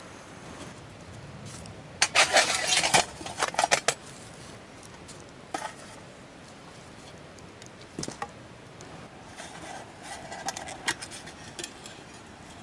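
Small metal camp gear clattering and clinking as it is handled. There is a dense run of rattling about two seconds in that lasts a couple of seconds, then single clinks and another short flurry later on.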